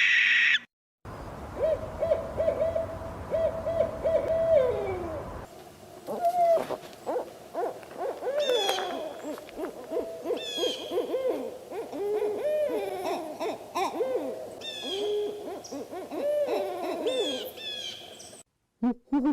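Owls calling: a run of short hoots on much the same pitch. After a few seconds this gives way to a busier mix of many hoots and quick, higher calls, then a few separate hoots near the end.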